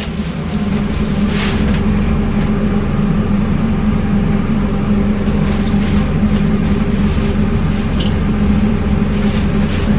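A steady, loud, low motor-like drone with a constant hum that swells up over the first second and then holds. It is joined now and then by brief crinkles of a plastic shopping bag.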